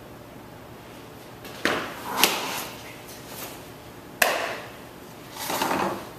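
A few sharp smacks, two close together and then a third, each trailing off in a large echoing hall, followed by a longer scuffing rush: a ball being thrown and caught, smacking into a glove.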